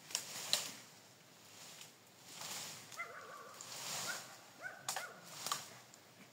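Branches cracking and brush rustling: two sharp snaps near the start, rustling in the middle, then two more snaps near the end. A short faint call sounds about halfway through.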